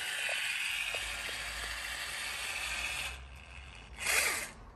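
Caulking gun laying a bead of urethane windshield adhesive along a metal frame: a steady hiss with a few faint clicks that stops about three seconds in. A short burst of noise follows near the end.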